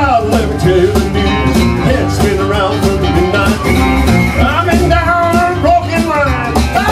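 Blues band playing an instrumental break: a harmonica wails bending, held notes into a hand-held microphone over a strummed resonator guitar, electric guitar and drums.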